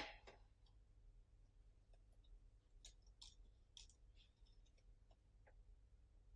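Near silence with a few faint clicks and ticks scattered through it, the first and loudest right at the start.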